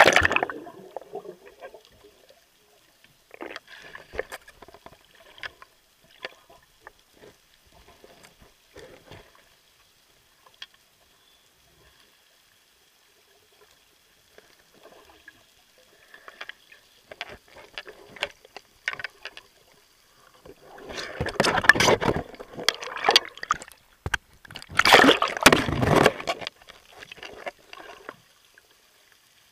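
Water sloshing and gurgling around a camera at the sea surface, with scattered small splashes and clicks. Twice in the last third comes a longer, loud burst of splashing and bubbling.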